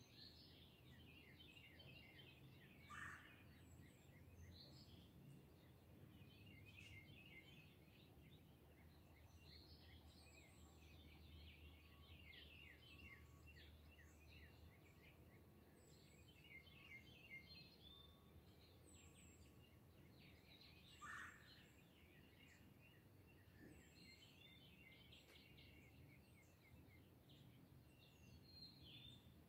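Faint dawn chorus of many songbirds chirping and trilling throughout, over a low steady rumble. Two short, louder calls stand out, about three seconds in and again about two-thirds of the way through.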